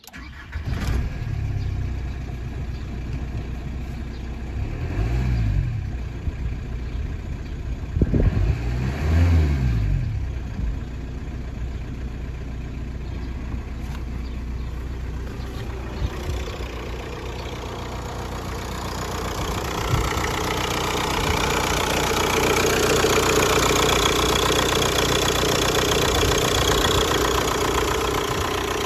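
A 1997 VW Passat TDI's AHU 1.9-litre four-cylinder turbodiesel starting, revved briefly a few times in the first ten seconds, then idling steadily. The idle grows louder in the last third, heard up close under the open hood.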